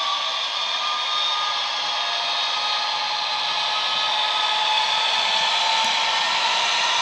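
Model locomotive's DCC sound decoder playing a Class 66 diesel engine sound through the Class 67's small twin iPhone-type speakers, giving a steady, tinny engine drone with hiss and no deep bass. It grows slightly louder as the locomotive draws near.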